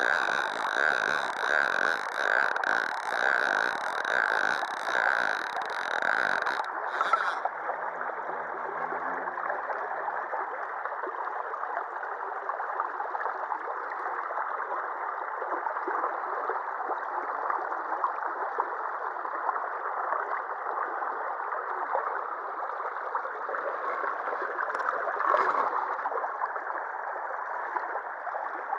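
Shallow river water rushing steadily over and around a concrete sill. For the first several seconds an evenly pulsing high tone, about two pulses a second, sounds over it, then stops suddenly.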